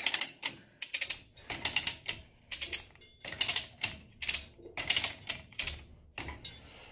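Manual chain hoist being hauled by its hand chain to raise a hanging engine: bursts of rapid ratchet clicks and chain rattle, about one burst each second, stopping near the end.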